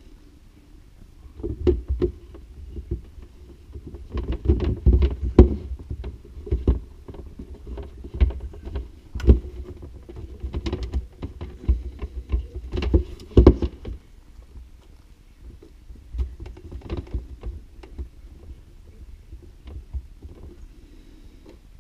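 Plastic knocks, clunks and rubbing as an EcoWater reverse osmosis filter cartridge is handled and seated in its housing, irregular and busiest through the first two-thirds, then fewer and fainter.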